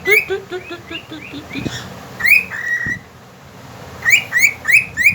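Cockatiel whistling: a quick run of short rising chirps that fades away, a rising note held briefly about two seconds in, then another run of rising whistled notes near the end.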